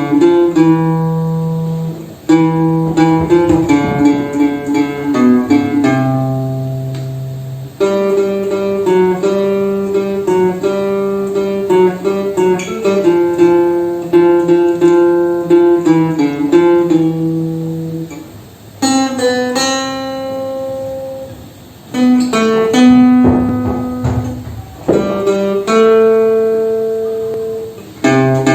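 Acoustic guitar music: plucked notes and strummed chords played in phrases, with short breaks between them.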